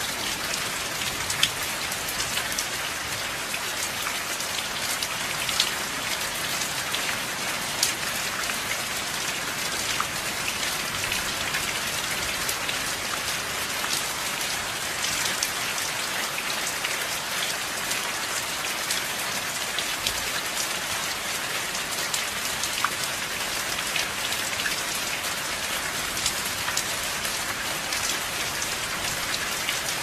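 Steady rain falling, with individual drops landing as sharp little ticks among a constant hiss; no thunder rumble.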